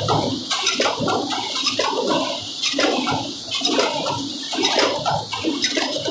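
Nut and bolt forming machine running: a regular rhythm of sharp metallic strokes, roughly two a second, over a steady rushing noise.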